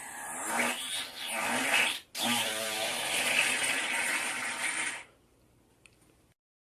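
A person's deliberate gas noise, long and buzzing: one that ends about two seconds in, then after a brief break a second one of about three seconds that stops well before the end.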